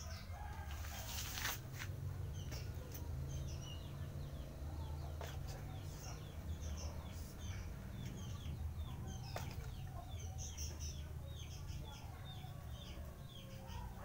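Birds peeping over and over, short falling notes two or three a second, with a brief rustle or wing flutter about a second in, over a low rumble.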